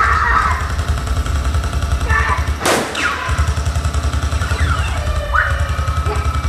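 Water stunt show effects: a steady low rumble with a single sharp bang, like a gunshot, about two and a half seconds in.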